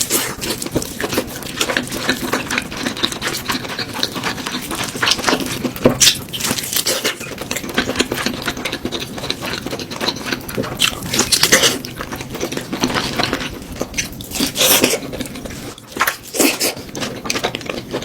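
Close-up eating sounds: rapid crunching and clicking of food being chewed, with several louder crackling bursts.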